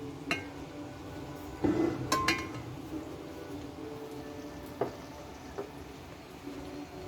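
Glass and metal bar tools clinking: a few separate sharp clinks, two of them close together with a brief ringing tone, over a steady low hum.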